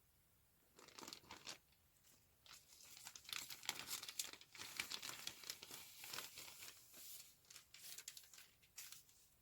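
Plastic packaging bag crinkling as it is handled, in irregular crackles from about a second in, busiest in the middle.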